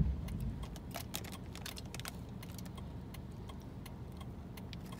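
Plastic sweet bag crinkling and crackling as it is handled and rummaged in for a sweet, in many small scattered crackles.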